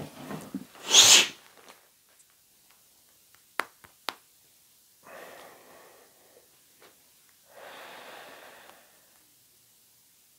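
A man sniffing perfume on his skin: a loud, sharp sniff about a second in, two sharp clicks in the middle, then two softer, slower breaths.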